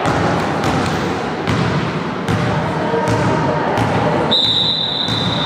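Referee's whistle blown in one long, high, steady blast starting about four seconds in, the signal that authorises the volleyball serve. Before it, voices and scattered thuds from a ball bouncing on the hall floor.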